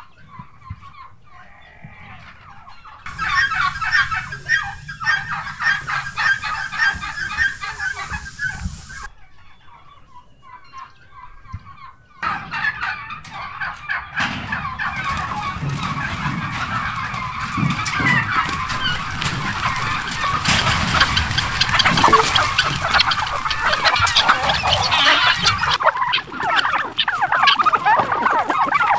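A flock of domestic turkeys and chickens calling together, turkey gobbles mixed with chicken clucking. The calls come in short edited stretches, fainter at first, then dense and overlapping and louder toward the end.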